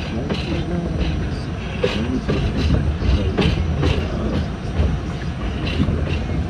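R68 subway train running at speed through a tunnel: a steady low rumble of wheels and motors, with sharp clicks of the wheels over rail joints coming at fairly regular intervals.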